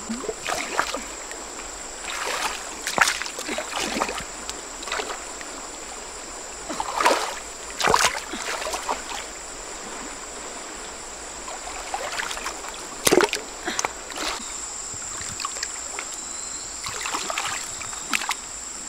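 Hands splashing and sloshing in shallow stream water while moving stones, in irregular bursts, over the steady rush of the flowing stream. A single sharp knock about 13 seconds in is the loudest sound.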